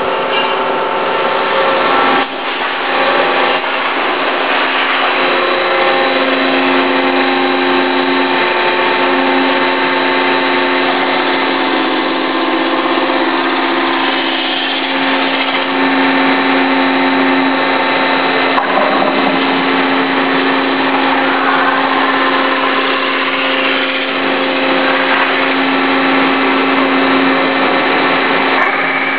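Machinery running steadily: a loud whir with several held tones that shift in pitch now and then, and a short knock about two seconds in.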